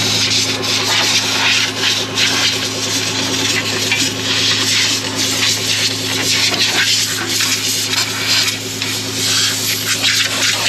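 Loud, steady rush of air blowing dirt and chaff off a Case IH combine, over a steady low hum.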